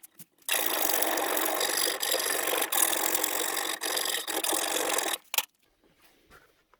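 A file rasping against the steel clamp of a fishing magnet to smooth out a dent. It runs as a steady scrape for about five seconds, with brief dips in between, and stops abruptly; a few faint small clinks follow.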